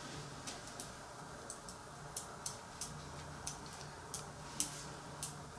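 Light, irregular clicks and ticks, about a dozen, from a spatula working whipped cream out of a glass bowl and spreading it over a génoise sponge sheet, over a faint low hum.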